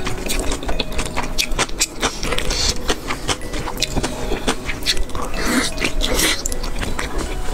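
Close-miked chewing and eating of sausage and kimchi: a dense, steady run of wet mouth clicks and smacks, with a few longer breathy sounds about a third of the way in and again near the end.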